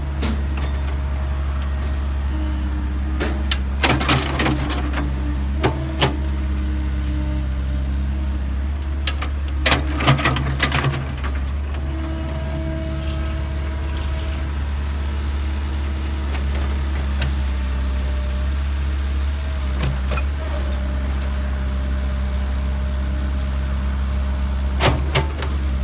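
Kobelco excavator's diesel engine running steadily, with short clusters of sharp clanks and knocks about 4, 6, 10 and 25 seconds in as it works.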